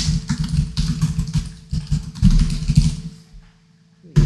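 Typing on a computer keyboard: quick, irregular keystrokes that stop about three seconds in, followed by a single click near the end.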